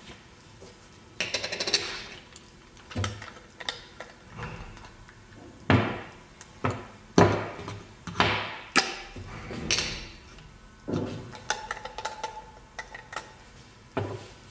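Irregular knocks and clicks with several short rasping scrapes from a salt and pepper grinder being handled and worked.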